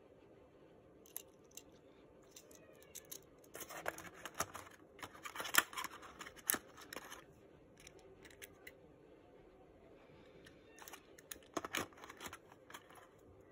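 Faint plastic clicks and scrapes as a small remote controller is handled in its moulded plastic tray, in two bouts, a busier one in the middle and a shorter one near the end.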